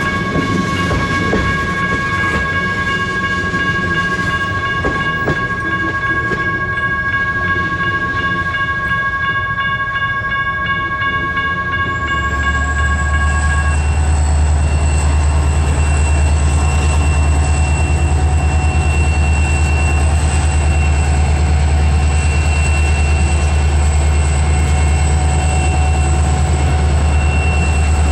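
Freight train's diesel locomotive running, with a steady, held horn-like tone through the first half that cuts off about halfway. After that a deep engine rumble grows louder, with a high steady whine above it.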